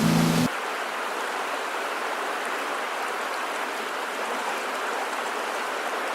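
Mountain brook trout stream rushing steadily over rocks. A guitar music cue cuts off about half a second in.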